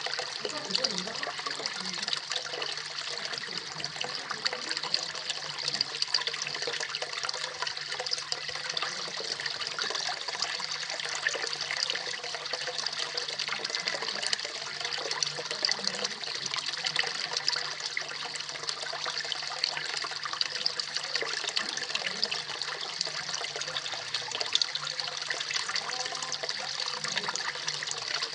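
Small garden waterfall splashing steadily into a koi pond, a constant trickling and splashing of falling water.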